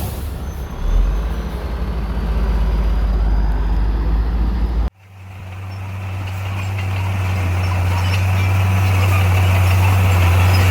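Heavy diesel machinery running steadily. About five seconds in, the sound cuts off abruptly and a different engine with a steady low hum takes over, growing gradually louder.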